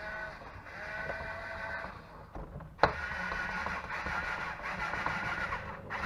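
Cordless screwdriver's motor whining as it drives screws, in two runs of about two and three seconds with a sharp click between them.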